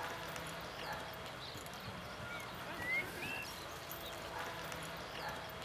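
Faint hoofbeats of a horse cantering over grass up to a cross-country jump and over it, with a few short high chirps about halfway through.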